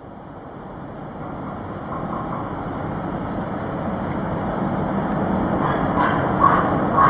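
A steady rushing, rumbling noise fades in from silence and grows louder throughout. A few short higher blips come in near the end.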